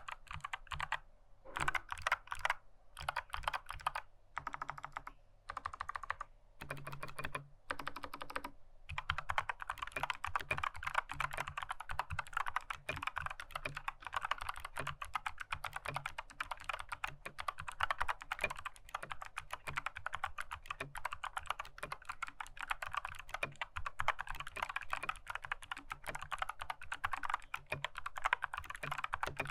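Mechanical keyboard with clicky Kailh Box White switches being typed on. Short runs of keypresses are broken by pauses over the first several seconds, then fast, steady typing from about nine seconds on.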